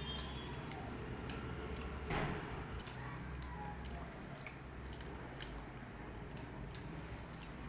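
Close-up eating sounds from a meal of rice and dal: soft wet squishing and chewing with small scattered clicks, and one louder noisy swell about two seconds in.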